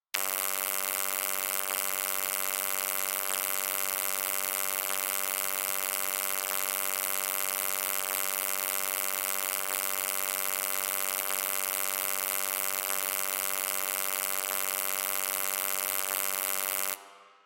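Low electric hum: a steady buzzing drone made of many stacked tones with hiss above them, cutting off near the end with a short fade.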